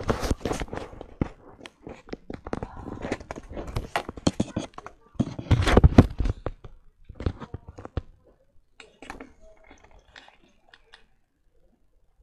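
Close handling noise: knocks, bumps and rustles of the recording camera being moved about, dense for about eight seconds, then only a few scattered taps.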